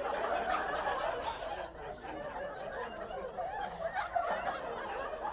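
Comedy club audience laughing after a punchline, swelling right at the start and carrying on without a break.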